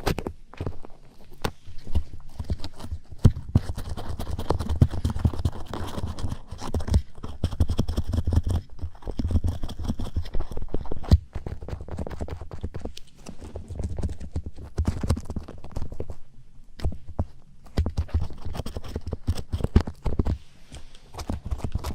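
Ear-cleaning ASMR on a daruma-shaped binaural dummy-ear microphone. An ear pick scrapes and rubs right at the mic's ear, giving dense scratchy rustling with many quick clicks and a low rumble.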